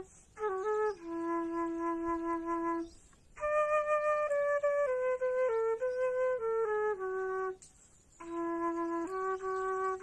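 A flute playing a slow melody of held and stepping notes, with short breaks in the playing just after the start, around three seconds in and near eight seconds.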